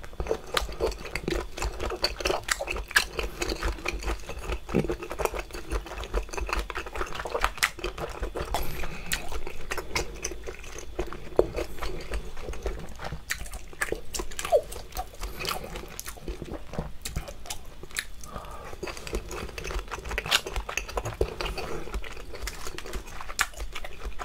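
Close-miked chewing of chewy boiled and raw seafood, with dense wet smacking and clicking of the mouth.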